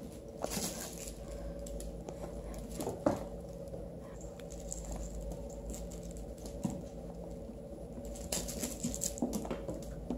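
Paws and claws of a puppy and a kitten pattering and scratching on a hardwood floor as they scuffle, in scattered short bursts with one sharp knock about three seconds in and a busier flurry near the end.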